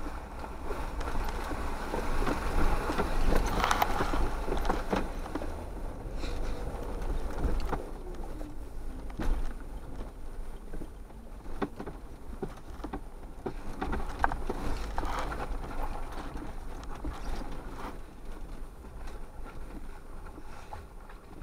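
A 4x4 crawling slowly over a rocky, snowy trail: a steady low engine-and-drivetrain rumble, with scattered knocks as the tyres and suspension go over rocks.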